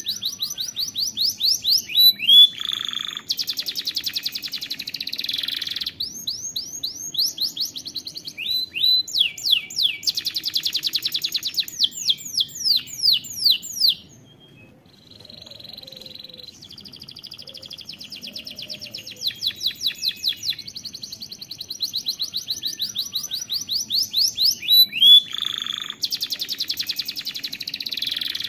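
Domestic canary singing a long song of rapid trills and fast runs of repeated notes, breaking off briefly about halfway through before going on.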